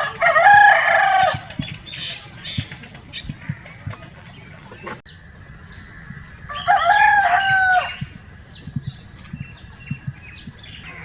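Roosters crowing: two long crows, one right at the start and one about seven seconds in, with shorter clucking calls between them.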